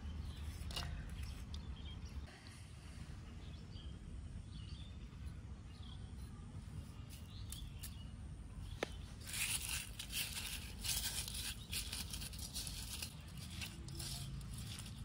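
A hand crushing and rubbing roasted dried chilies with chopped onion and salt in a small terracotta bowl: a dry, crackling crunch that starts about nine seconds in, over a low steady outdoor rumble.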